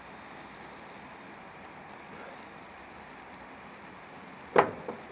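Faint steady background hiss, then about four and a half seconds in a sudden sharp scrape as a Zippo Typhoon storm match is struck on its striker, followed by a smaller knock.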